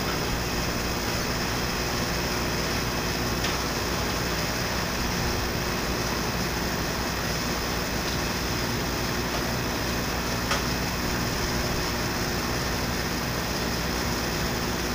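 Walkera QR X350 quadcopter's electric motors and propellers spinning at a steady idle while it sits on the ground, a constant whirring hum with several steady tones, and two faint clicks about 3.5 and 10.5 seconds in.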